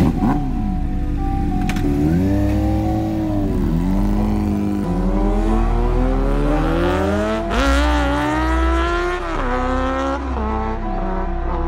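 Motorcycle engines accelerating away through the gears. The pitch climbs and then drops back at each upshift, several times over.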